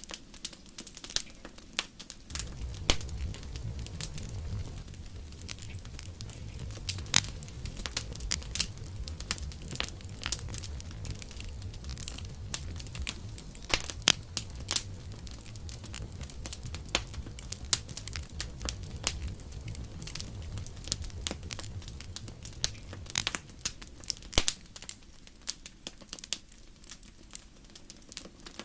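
Wood campfire crackling, with many sharp pops and snaps over a soft hiss. A low rumble sets in about two seconds in and drops away near the end.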